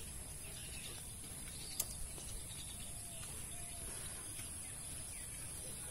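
Quiet outdoor ambience with a few faint bird calls, two short ones about three seconds in, and a soft click a little before the two-second mark.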